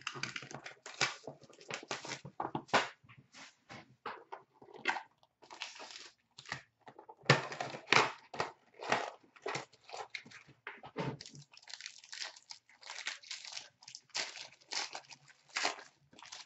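A 2013-14 Panini Playbook hockey card box being unwrapped: its plastic wrapper and foil card-pack wrappers torn open and crumpled, an irregular run of crinkling and crackling.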